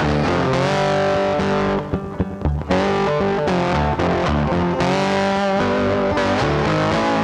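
Background rock music led by distorted electric guitar, with a brief break about two seconds in.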